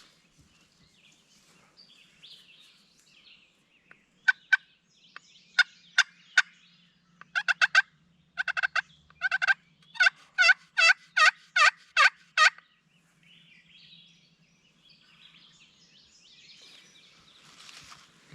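Hen turkey calls from a hunter's turkey call, loud: a few sharp single cutts, then quick clusters of notes, then an even run of about seven yelps, each note dropping in pitch.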